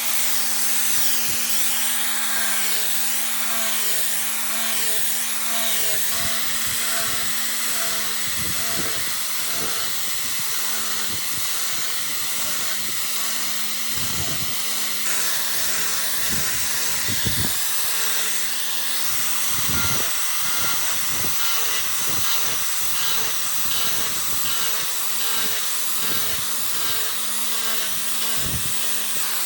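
A power tool running steadily with a constant hiss and motor hum, with scattered short knocks as it works wood.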